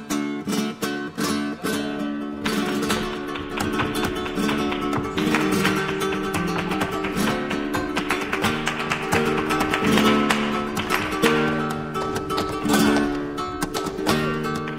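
Flamenco guitar music with strummed chords.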